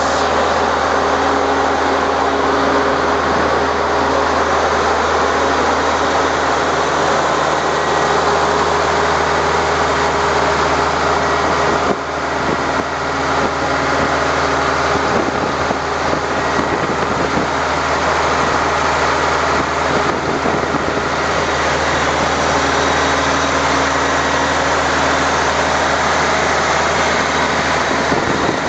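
1970s Ingersoll Rand XHP 750 portable air compressor with its overhauled Caterpillar diesel engine running steadily and smoothly, a loud continuous engine drone with the compressor and cooling fan running with it.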